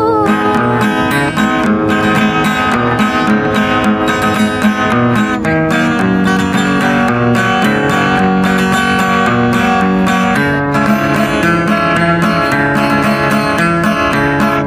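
Acoustic guitar strummed in a steady rhythm with sustained chords and bass notes: the instrumental interlude of the song between sung verses.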